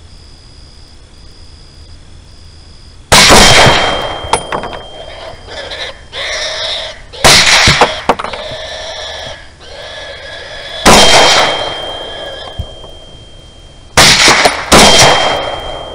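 Five 6.5 Grendel rifle shots: the first three come about four seconds apart and the last two under a second apart, each with a trailing echo.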